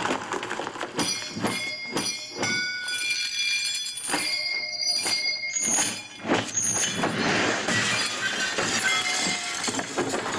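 Film fight-scene soundtrack played through an ASUS Cine5 surround soundbar: a rapid series of hits and crashes, several of them followed by brief ringing, with a denser noisy stretch in the second half.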